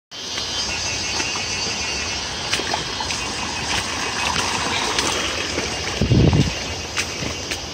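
Small rocky forest stream splashing and rushing over stones in a steady wash of water noise, with a brief low rumble on the microphone about six seconds in.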